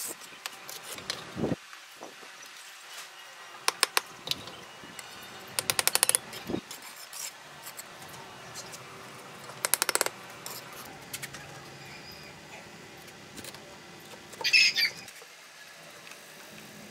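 Bricklayer's trowel tapping cement-laid red bricks down into the mortar bed, in quick runs of sharp clicks, three times in the first ten seconds. About two seconds before the end a short, high chirp is the loudest sound.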